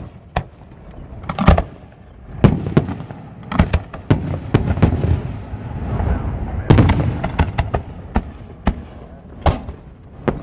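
Aerial fireworks shells bursting overhead: an irregular run of more than a dozen loud bangs, sometimes several within a second, with a low rumble between them.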